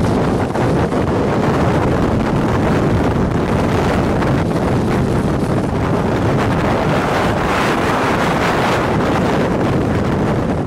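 Strong tornado wind rushing and buffeting the microphone, a loud, steady roar of noise with a brief swell about eight seconds in.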